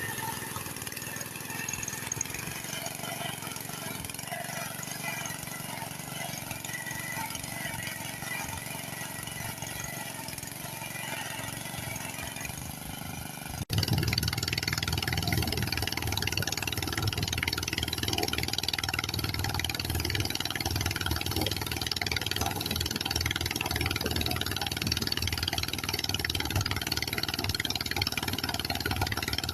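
Engine of a rice harvesting machine running steadily. After a cut about halfway through, it is much louder and closer, with a heavy low engine sound.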